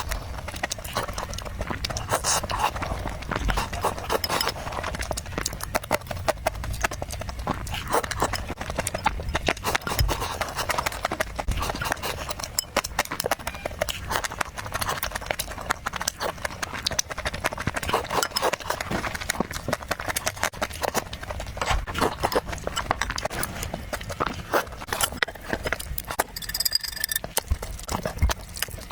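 Close-miked eating sounds: a person chewing and smacking food, a steady stream of quick, irregular wet clicks.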